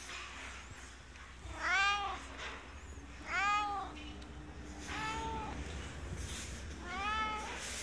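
Tabby-and-white domestic cat meowing four times, each meow a short call that rises and falls in pitch, spaced about a second and a half apart.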